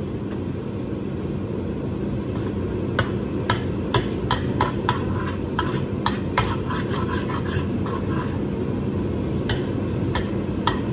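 Spatula scraping and knocking against a nonstick frying pan as minced meat is stir-fried, in quick irregular strokes that start a few seconds in, over the steady low hum of a kitchen range hood fan.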